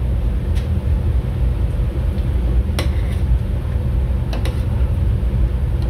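A metal spoon clinks a few times against a stainless-steel stew pot as chicken is scooped out of the sauce, over a loud, steady low machinery rumble.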